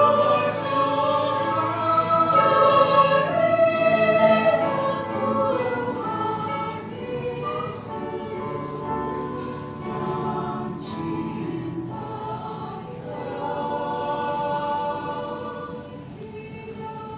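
Church choir singing a praise hymn in held notes, fuller and louder for the first few seconds, then softer toward the end.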